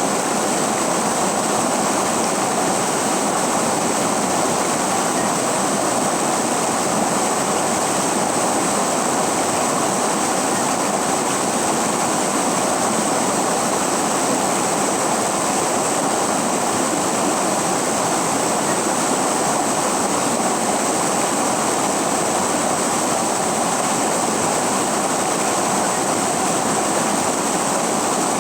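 River water rushing, a steady unbroken sound of flowing water.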